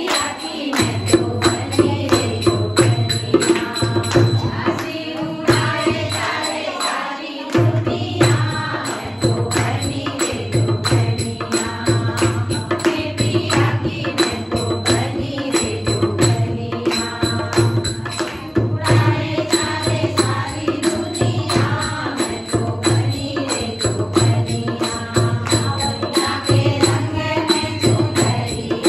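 Indian folk dance music: a singing voice over a steady drum beat, with hand clapping keeping time. The drum drops out briefly about six seconds in and comes back about a second and a half later.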